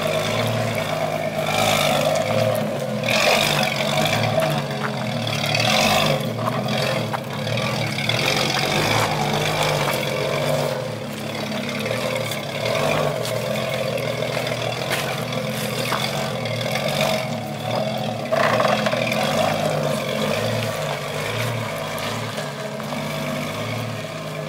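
Jeep Cherokee engine running as the lifted Jeep crawls over rocks on an off-road trail, getting louder at several moments.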